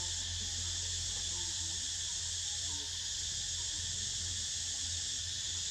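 Steady, high-pitched insect chorus droning without a break, with a low steady hum underneath.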